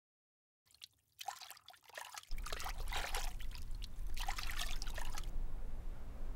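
Shower water trickling and splashing, stopping about five seconds in, over a steady low hum that starts about two seconds in.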